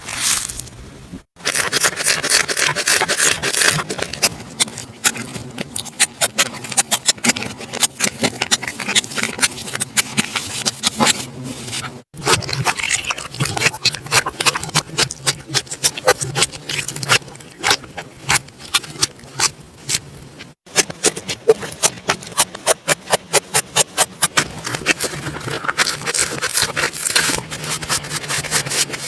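Slime being squished and worked, giving dense runs of sticky clicks and pops. The sound drops out abruptly three times.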